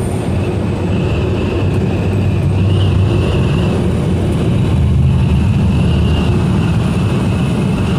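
Steady cab noise of a semi truck at highway speed: a loud low drone of engine and road, with wind pressing on the cab in strong crosswinds, swelling slightly a couple of times.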